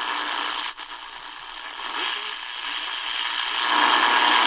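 Shortwave static hissing from the speaker of a Tecsun DR-920C portable radio as it is tuned slowly across the 49-metre band. The hiss drops suddenly about three-quarters of a second in, stays lower, then builds back up near the end.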